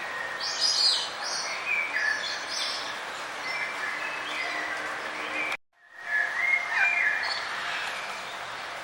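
Wild songbirds chirping and trilling in short calls over a steady background hiss. The sound cuts out for a fraction of a second a little after halfway, then the chirping resumes.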